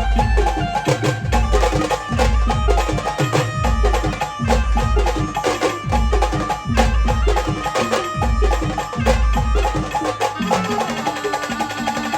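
Band music with no singing: a melody over fast percussion with sharp strikes and a heavy bass-drum beat, the bass beat dropping out about ten seconds in.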